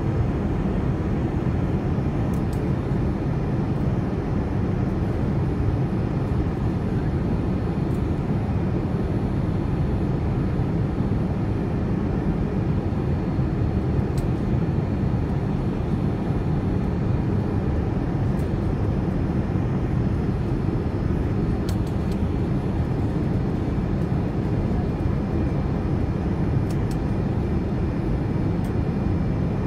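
Steady engine and rushing-air noise of a Boeing 787-9 Dreamliner heard inside the passenger cabin as the airliner climbs after takeoff. It is a constant low-pitched rumble, with a few faint ticks.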